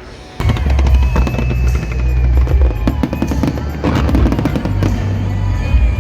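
Loud festival show music with a heavy bass comes in suddenly, with fireworks crackling over it in quick sharp bursts.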